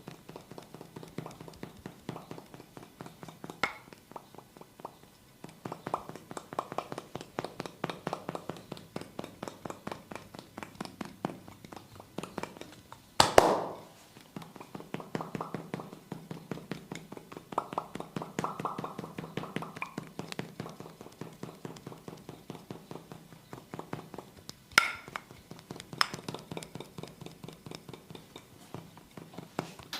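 Hands tapping and slapping rapidly on skin during an oiled massage, in fast runs of short sharp strikes. A much louder sharp crack comes about 13 seconds in, and another near the end.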